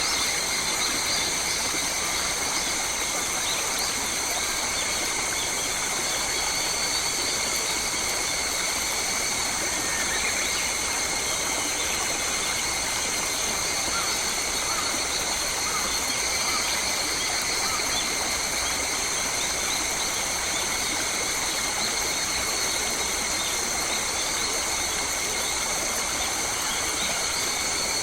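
Australian bush ambience: a steady, high-pitched insect chorus droning without a break over an even rushing hiss, with a few faint bird chirps.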